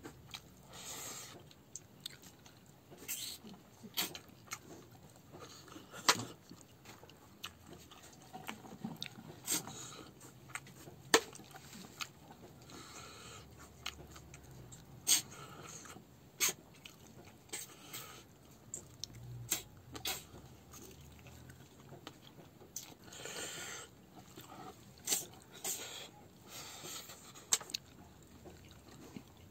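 A man chewing mouthfuls of rice and curry eaten by hand, picked up close by a clip-on microphone: irregular wet mouth clicks and smacks with some breathing.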